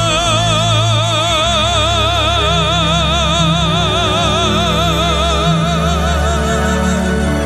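A man singing one long, high held note with wide vibrato over an orchestral backing track, the note ending about seven seconds in.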